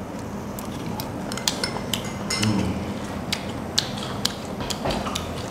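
Chopsticks and spoons clinking against porcelain bowls and plates at a meal: about a dozen sharp, irregular clicks.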